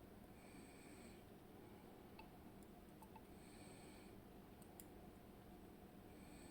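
Near silence with a few faint, sharp little clicks: small metal parts of a dismantled Kaba 6 lock being handled as its driver pins are taken out.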